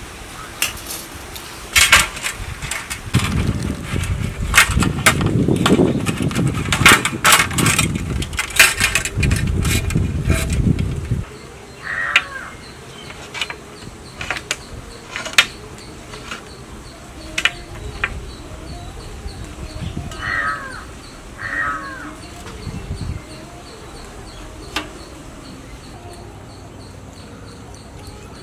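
A run of sharp knocks and clatter over a low rumble for the first ten seconds or so. Then a few short crow caws, about twelve seconds in and twice more near twenty seconds, over a faint steady insect drone.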